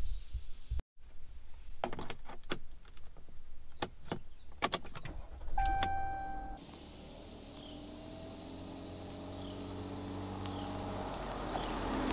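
Clicks and knocks of someone settling into a Jeep Cherokee, then a short electronic chime as the push-button start is pressed. The SUV then pulls away, its engine rising in pitch as it accelerates.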